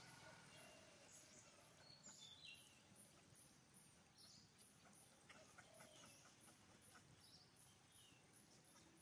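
Near silence: faint outdoor ambience with scattered high chirps and a very high, faint ticking about three times a second.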